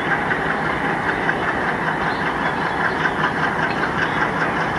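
ALCo diesel locomotive running steadily: a continuous engine rumble with a faint rhythmic ticking about four times a second.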